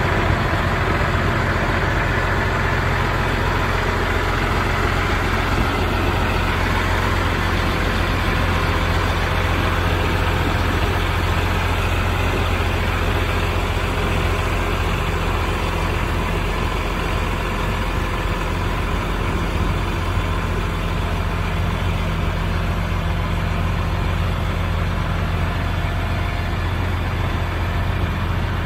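Case IH STX375 four-wheel-drive tractor's diesel engine idling steadily, an even low hum with no revving.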